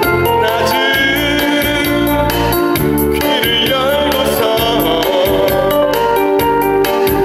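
A man singing a song into a handheld microphone over amplified instrumental accompaniment with a steady bass beat.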